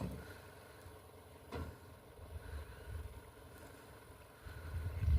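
Mitsubishi Sportero pickup's diesel engine idling with a steady low rumble, with a single click about one and a half seconds in. Near the end a much louder low rumble builds up.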